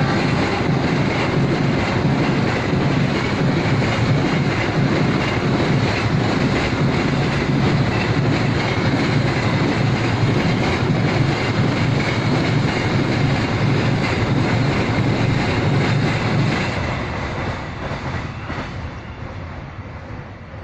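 Freight train rolling past at close range, wagon wheels rumbling and clattering on the rails, with a faint steady ringing whine; the sound dies away over the last few seconds as the train draws off.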